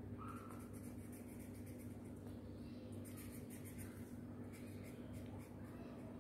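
Green felt-tip sketch pen scratching across paper as leaves are coloured in, in quick back-and-forth strokes. Two runs of strokes: one at the start and another about three seconds in, with a steady low hum underneath.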